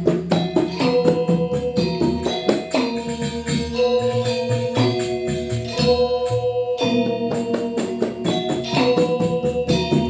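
Balinese gamelan Semara Pagulingan playing: bronze metallophones ringing in sustained tones under a fast, dense run of struck notes.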